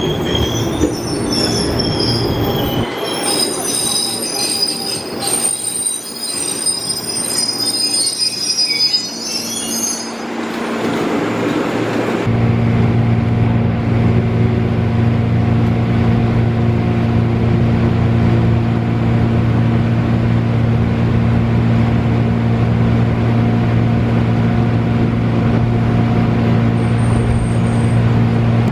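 Train wheels squealing on the rails, several high-pitched tones together for about the first ten seconds. Then a steady low hum from the train takes over.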